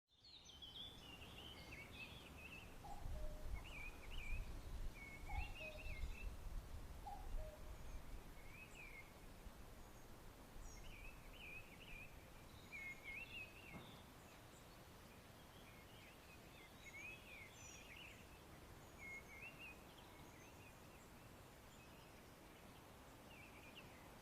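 Forest birds singing: short warbling phrases repeated every second or two, with higher chips over them and a few lower two-note calls in the first several seconds. A low rumble runs under the first eight seconds.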